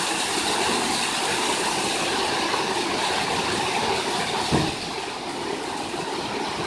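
Water rushing through a water-powered sawmill's tub wheel, a steady hiss, as the wheel runs the saw carriage back in reverse. A single thump about four and a half seconds in, after which the noise drops a little.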